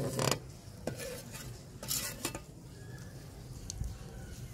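Perforated metal skimmer stirring and scraping in a steel karahi of boiling milk: a few scraping strokes, the strongest at the start and about two seconds in.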